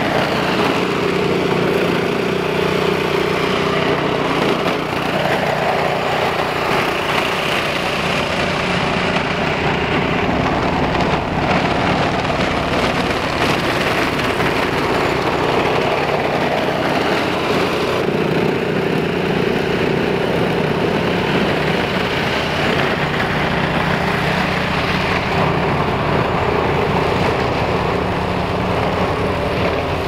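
Single-stage snowblower engine running steadily while it clears a driveway, its drone swelling and easing a few times as it works through the snow.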